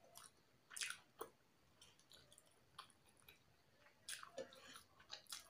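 Faint mouth sounds of a person chewing a mouthful of rice: irregular wet clicks and smacks, several in quick succession about a second in and again near the end.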